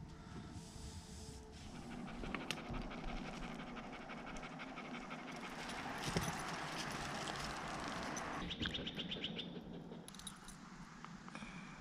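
A dog panting fast and evenly for several seconds.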